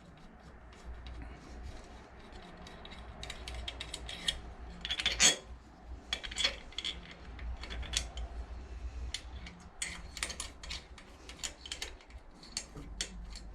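Irregular metal clicks and clinks of hand tools and small parts while a Predator 212 engine's valve train is being put back together, with a short flurry of clinks about five seconds in.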